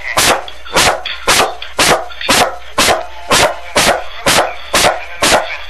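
A dog barking over and over in a steady rhythm, about two sharp barks a second.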